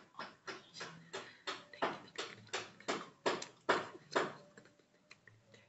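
A close-miked ASMR run of soft, sharp clicks or taps, about three a second, growing louder towards the middle and stopping about four seconds in.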